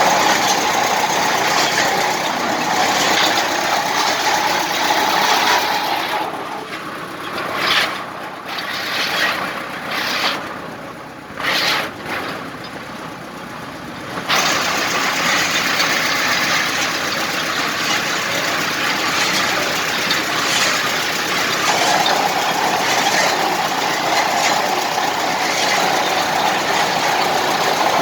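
A new drilling rig's engine running loud and steady on a test run. It drops to a lower level about six seconds in, with a few short surges, then comes straight back up to full running about fourteen seconds in.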